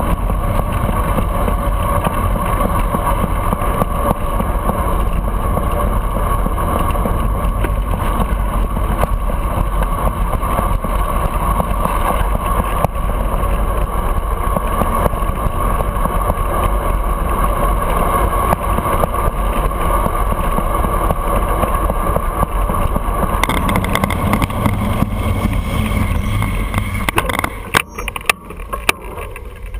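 Steady wind rush on a handlebar-mounted camera's microphone, with road rumble, from a bicycle riding along a city avenue. Near the end the noise drops as the bike slows among traffic, with a few sharp clicks.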